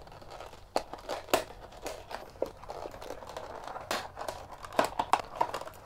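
Stiff clear plastic blister pack being cut open by hand: the plastic crinkles, with sharp snips and clicks scattered irregularly throughout.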